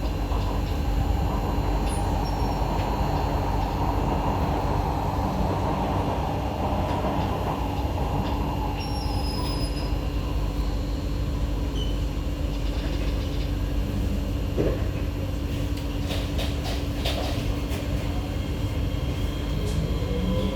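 Cabin sound of an SMRT C151A metro train running on the track: a steady low rumble with a constant hum. Near the end a rising whine begins.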